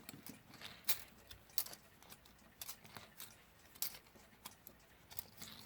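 Small, irregular metallic clicks and light scrapes of a Westclox Baby Ben's steel alarm mainspring being coiled by hand into its barrel, each click sharp and short.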